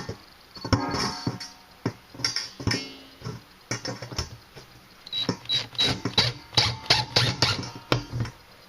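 Stainless steel salad bowl being handled and fastened in place: a quick, irregular run of metal clanks and knocks, each one ringing briefly, thickest in the second half.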